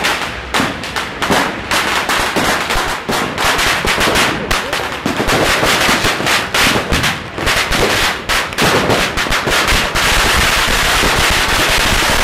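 Firecrackers going off in a rapid, irregular rattle of sharp bangs, merging into an almost unbroken crackle near the end.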